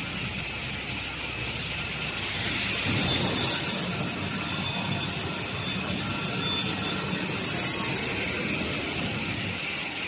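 Beam saw running as it cuts wood panels: a steady machine roar with a high, even whine over it, growing louder for a moment about eight seconds in.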